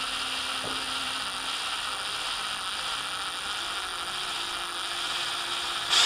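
Cordless drill running slowly on a light trigger, its gearbox giving a steady whir as it starts a small pilot hole.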